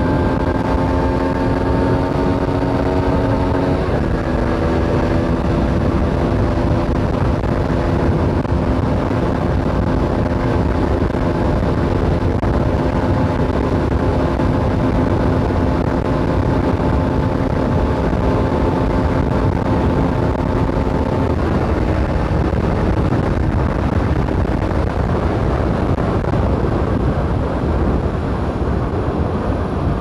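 Aprilia SX125 supermoto's single-cylinder four-stroke engine running at steady road speed while riding, mixed with a constant wind rush on the microphone. The engine's pitch steps down about four seconds in, and its tone fades under the wind noise a little past twenty seconds.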